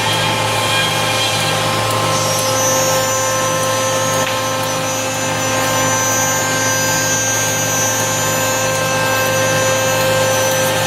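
YL 48152R+B CNC router's spindle running and routing wood: a loud, steady machine whine over a low hum, with a higher whine joining about two seconds in.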